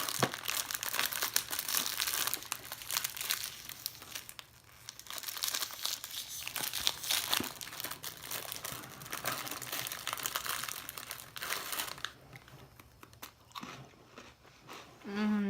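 Plastic wrapper of a packet of butter cookies crinkling and crackling as it is opened and handled, dying down about twelve seconds in.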